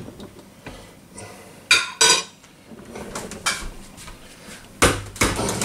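Cutlery and dishes clinking and knocking: two sharp clinks about two seconds in, then a louder knock near the end.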